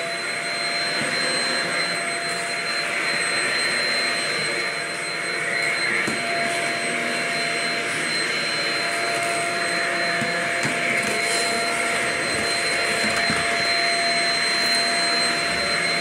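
Shark Rocket self-cleaning stick vacuum running steadily while vacuuming, a high motor whine over the rush of air.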